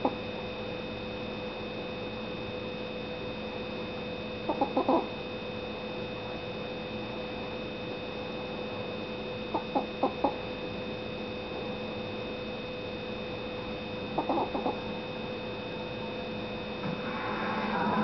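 Pinscher dog snoring in deep sleep: three short snores about five seconds apart, each a quick run of a few pulses, over a faint steady hum. A louder noisy sound builds near the end.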